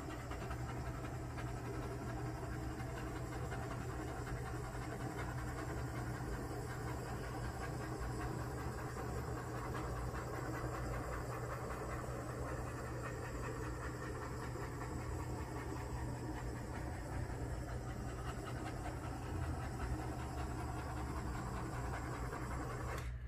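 Handheld butane torch burning with a steady hiss as its flame is passed over a wet acrylic paint pour. The flame cuts off near the end.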